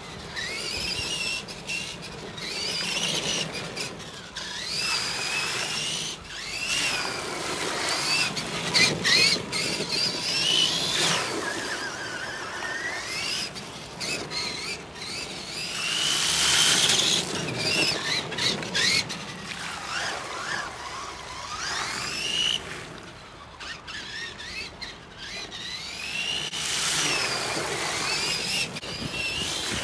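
Tamiya Clodbuster RC monster truck's electric motors and gear drive whining, the pitch rising and falling again and again as it speeds up and slows down, over the hiss of its tyres on wet asphalt. Twice, about halfway and near the end, a loud rush of water spray as it ploughs through a puddle.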